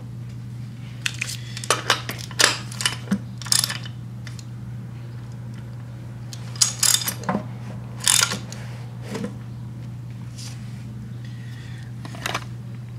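Irregular metallic clicks and clanks from a socket wrench on the crankshaft bolt as a stripped Subaru EJ25 engine block is turned by hand, in two clusters of sharp knocks over a steady low hum.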